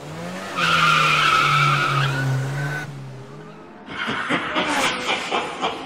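Car sound effect: an engine note rises in pitch and holds, with a tyre-squeal-like screech over it for about two seconds before it cuts off. About four seconds in, a run of sharp ticks starts, about four a second.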